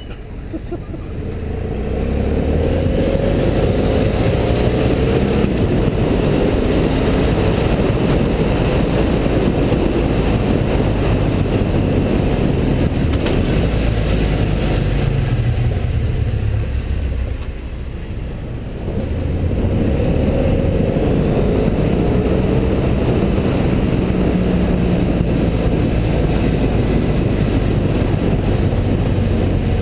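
BMW F650GS motorcycle engine running under load on a climb, heard from the bike itself. It builds up over the first couple of seconds, drops back briefly a little past halfway, then pulls steadily again.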